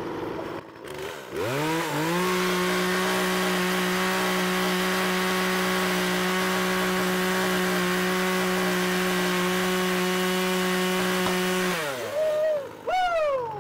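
Electric chainsaw spinning up about a second in, then running at a steady, even whine for about ten seconds before winding down, with two short revs near the end.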